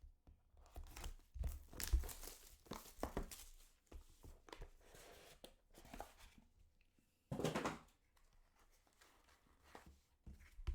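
Packaging of a sealed trading card box being torn open and crinkled, in irregular rustling bursts.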